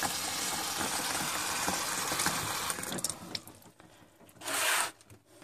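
Tap water pouring into a half-full plastic container in a stainless steel sink, a steady rush that fades out about three seconds in as the tap is turned off. A short burst of noise follows about a second and a half later.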